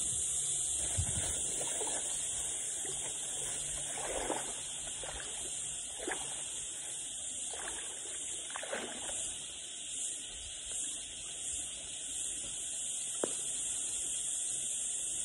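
River water splashing and sloshing a few times, as from someone wading in knee-deep shallows, over a steady high-pitched hiss.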